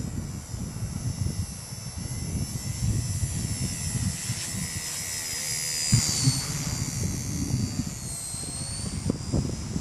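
Blade mCPX micro RC helicopter in flight: the brushless motor and rotor make a high-pitched whine that dips and rises in pitch about halfway through as it is flown. Strong wind buffets the microphone with a gusty low rumble.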